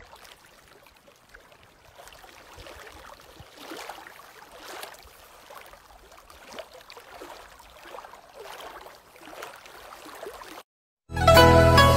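Faint scraping and crunching as a metal spoon and then a knife cut into crisp green fruit, in a few separate strokes. Loud music starts suddenly about a second before the end.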